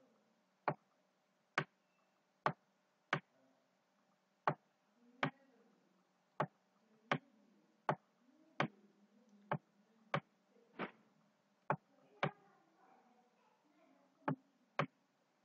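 Computer mouse button clicking in sharp single clicks at uneven intervals, roughly one a second, as handwriting is drawn stroke by stroke.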